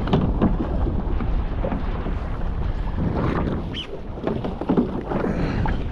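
Wind buffeting the microphone with a steady low rumble, over scattered short knocks and rustles.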